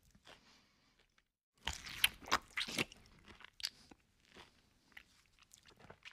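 Close-miked eating: crunchy bites into roast duck followed by chewing, with a loud cluster of crackling crunches about a second and a half in and quieter, scattered chewing clicks after.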